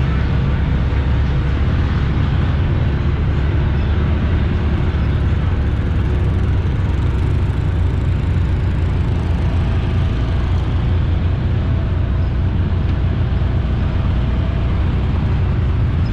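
ATV engine running steadily under way, a constant low rumble with no speech over it.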